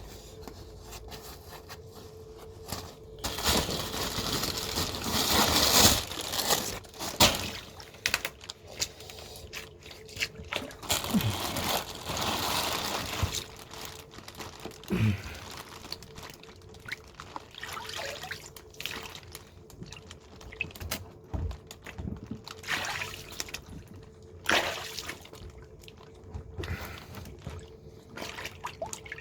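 Dirty water splashing, sloshing and trickling in a blocked drain gully as it is worked clear, in irregular bursts, over a faint steady hum.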